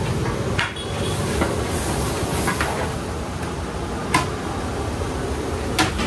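Long metal paddle stirring onions, tomatoes and green chillies in oil in a large aluminium cooking pot, knocking and scraping against the pot a few times, over a steady low rumble.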